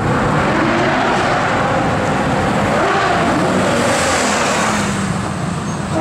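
Lamborghini Gallardo V10 engine running at close range, its pitch wavering slightly up and down.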